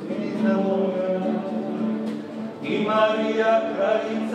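Male klapa group singing Dalmatian multipart harmony, holding long chords. There is a short break about two seconds in, then a new chord swells.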